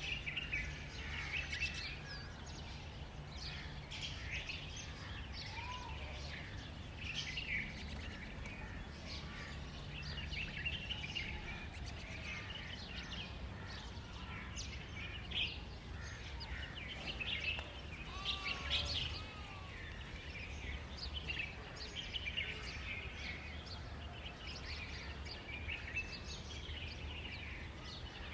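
Many small birds chirping and calling continuously, over a steady low hum.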